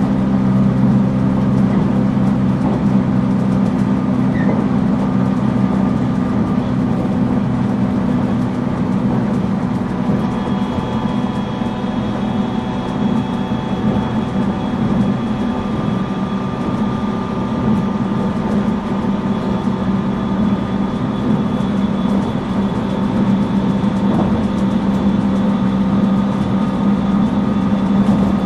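Onboard running sound of a JR East 719 series electric multiple unit motor car (KuMoHa 719-42), running steadily between stations with a loud, constant low hum and steady whining tones. A thin high whine joins about a third of the way through. This car is one known for an abnormal running noise.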